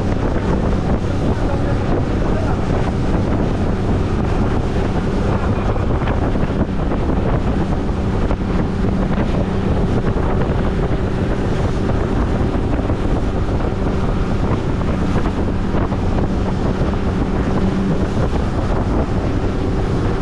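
Wind buffeting the microphone over the steady drone of a fishing boat's engine under way, with water rushing past the hull.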